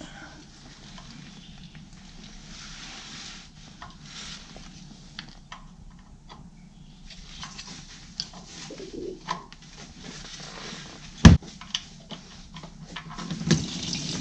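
Wrench working loose the steel sump drain plug of a Massey Ferguson 35's Perkins diesel, with small metal clicks and one sharp clank about three-quarters of the way through. Near the end, oil starts pouring out of the sump into a plastic drain pan.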